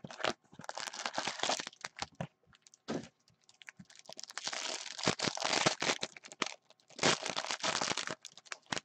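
Foil hockey card packs and their box being handled by hand: wrappers crinkling and tearing in irregular bursts of rustling.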